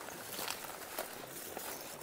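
Faint footsteps through long grass and scrub on an overgrown path, with soft rustling of the vegetation.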